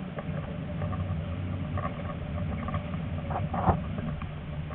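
Tram running on curving track: a steady low rumble of steel wheels on the rails, with brief high squeals from the wheels on the curve and one sharp clack about three and a half seconds in.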